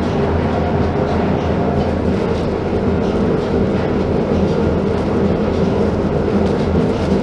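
Old flour-mill machinery running: a loud, steady mechanical drone with a low hum and a continuous clatter. The noise comes from the aged roller mills, all driven from a single motor.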